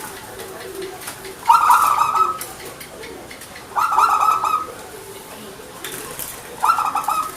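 Zebra dove (perkutut) cooing: three quick, trilling coo phrases about two and a half seconds apart.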